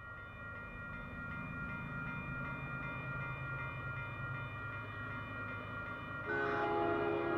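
Railway grade-crossing bell ringing in rapid, even strokes over the low rumble of an approaching diesel freight train. About six seconds in, the lead locomotive, a CP ES44AC, sounds its horn in a long chord that is the loudest thing heard.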